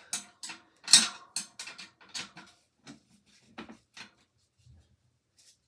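Metal wrench clicking and clinking on a bicycle's rear axle nuts as the wheel is tightened into place, a string of irregular sharp clicks with the loudest about a second in.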